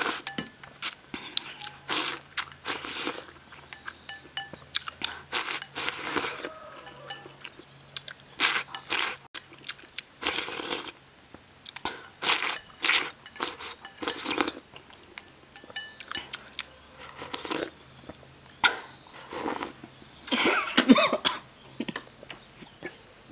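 A person eating rice soaked in sour soup with chopsticks: repeated slurps and chewing, in short irregular bursts. Near the end she chokes and coughs on the spicy broth.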